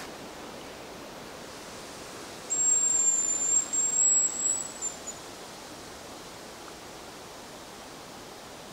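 A high, thin hazel grouse whistle, one drawn-out note that rises slightly at its end, beginning about two and a half seconds in and lasting about two and a half seconds, over a steady outdoor hiss.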